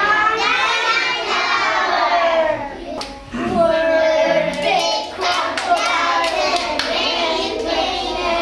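A group of young children singing a song together, with a quick run of sharp hand claps about halfway through.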